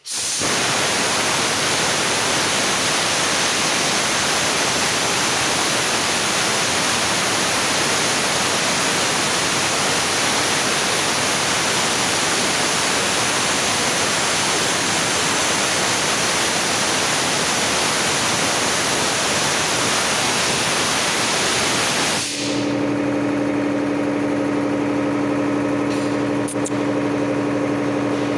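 Maruti 7.5 HP two-cylinder air compressor on a 500-litre tank: a loud steady hiss of compressed air rushing out, which cuts off about 22 seconds in. The compressor's motor and pump then run with a steady hum.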